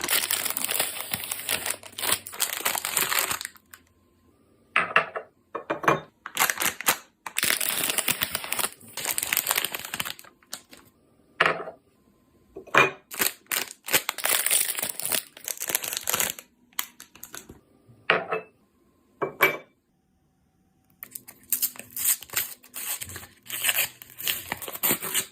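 Ice cream packaging being opened by hand: plastic wrapper crinkling and tearing in repeated bursts of rustling, with short pauses and a few brief sharp rips between them.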